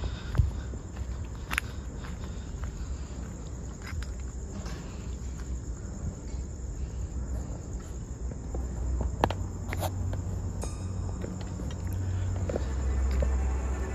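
Crickets chirping in a steady high drone, with a few sharp clicks and crunches of footsteps on broken debris.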